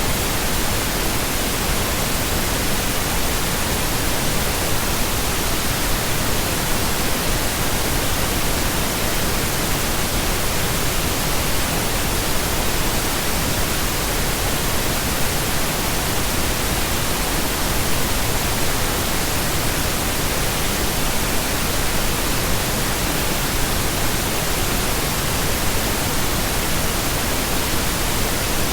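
Steady synthetic pink noise: an even, unchanging hiss with no rhythm or events.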